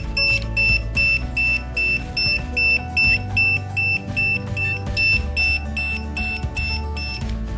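Out-of-range alarm of a Bluetooth anti-lost tracker: a high electronic beep repeating about two and a half times a second, stopping near the end. Background music plays underneath.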